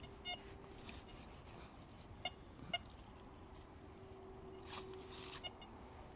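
Metal detector giving a few short beeps as its search coil is swept over dug soil, over a faint steady low tone.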